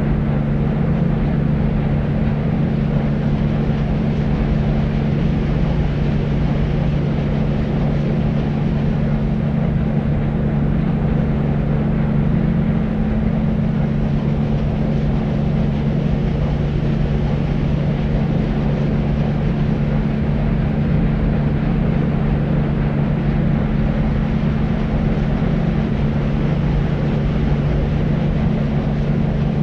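Deep white noise: a steady low rushing hiss with most of its weight in the bass and little treble, unchanging in level.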